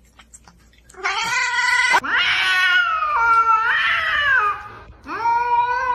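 A cat yowling: after a quiet first second, three long, drawn-out calls that waver up and down in pitch, the middle one the longest.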